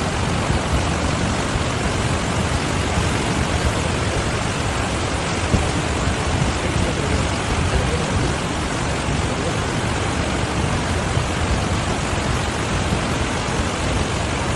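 Floodwater rushing through a street: a loud, steady, unbroken rush of water noise.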